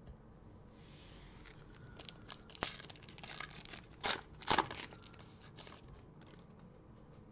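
Foil wrapper of a Panini Prestige football card pack torn open by hand, crinkling and crackling in a run of sharp bursts, the loudest about four and a half seconds in.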